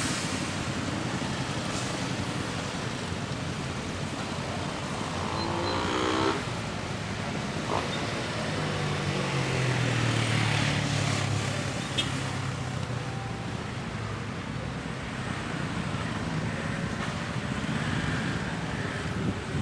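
Heavy road traffic in a jam: vehicle engines running and passing, with a short rising whine about five seconds in and a deeper engine drone from a large vehicle going by a little later.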